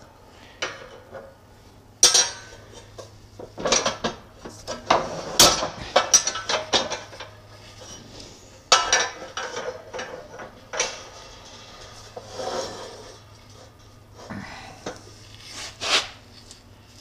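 Heavy steel parts of a shop press clanking and knocking as its bed, plates and pins are shifted and set in place. There are a dozen or so separate irregular clanks, the sharpest about two, five and nine seconds in.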